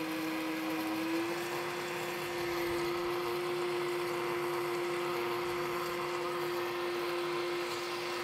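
KitchenAid countertop blender running steadily, pureeing lemon juice, garlic and toasted spices and grinding the spices fine. The motor's pitch rises slightly about a second in, then holds.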